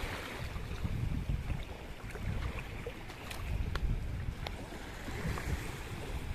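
Wind buffeting the microphone in an uneven low rumble over small waves washing at the shoreline, with a few faint ticks.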